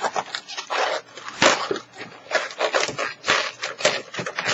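Latex modelling balloons rubbing and scraping in the hands as they are handled and twisted: a run of short irregular scrapes.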